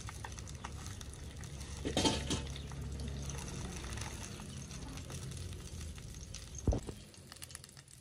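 Fish frying in oil in a pan over a wood fire, a quiet sizzle, with chopsticks stirring and a sharp knock against the pan about two-thirds of the way through. The sizzle dies down near the end as the fish comes out of the pan.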